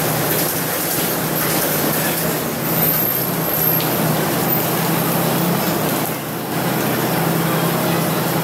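Diesel-hauled passenger train pulling slowly out of the station: a steady low engine hum and the rolling noise of the carriages, over the general noise of a crowded platform.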